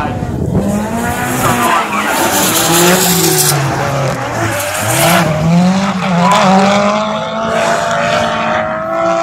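Drift cars sliding through a corner: engines revving hard, their pitch rising and falling as the throttle is worked, with tyres squealing.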